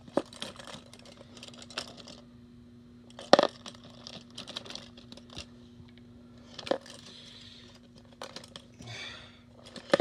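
Plastic disposable lighters clacking and rattling against each other as a hand digs through a tub packed with them: scattered sharp clicks, the loudest about a third of the way in.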